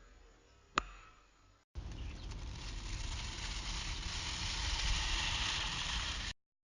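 A sharp click, then after a brief cut a loud, steady rushing noise that runs for about four and a half seconds and stops abruptly.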